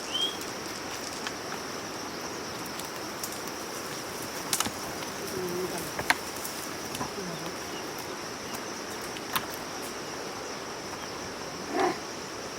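Open-field ambience with a steady high hiss, a few sharp clicks, and a short shout from the ploughman near the end.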